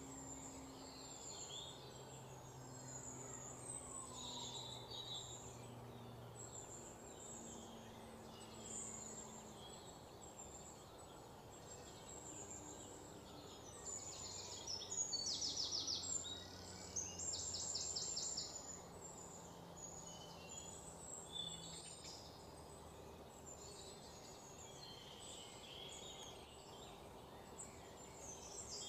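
Small birds chirping and twittering, with two louder rapid trills about halfway through, over a faint low hum.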